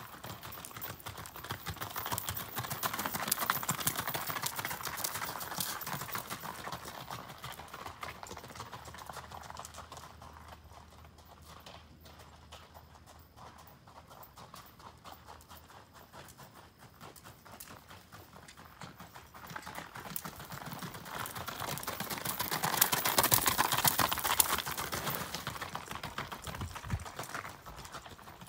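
Shod hooves of a gaited horse under saddle beating out a quick, steady rhythm. The hoofbeats grow loud as the horse passes close about two seconds in, fade in the middle, and grow loud again near the end.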